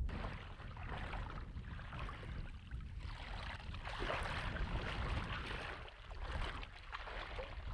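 Shallow water sloshing and splashing around a person wading, an uneven rushing that swells and eases, over a low rumble.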